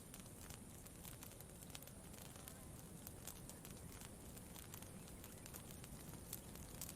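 Faint campfire crackling: scattered, irregular sharp pops and snaps over a low steady background hush.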